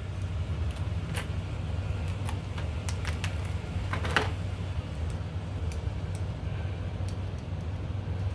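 Scattered small metallic clicks and taps as a nut and washer go onto a bolt in a Jeep hood latch, one sharper click about four seconds in, over a steady low hum.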